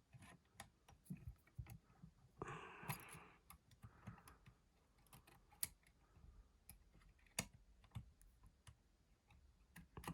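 Faint, irregular metallic clicks and light scraping of a lever lock pick and turner working the levers of a 5-pin curtain lever lock. A longer scrape comes about two and a half seconds in.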